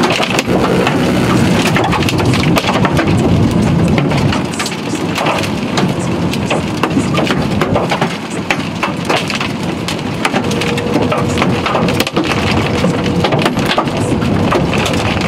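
Hail and heavy rain pelting a car's roof and cracked windshield, heard from inside the cabin: a dense, continuous clatter of separate hits over the hiss of rain.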